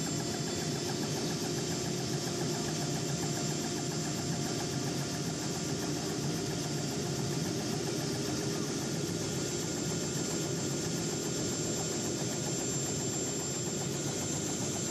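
Robinson R66 Turbine helicopter running on the ground at idle, its main rotor turning with a fast, steady beat over a steady high whine.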